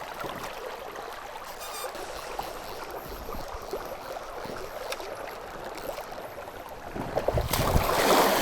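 Spring-fed creek water running steadily, growing louder and fuller about seven and a half seconds in.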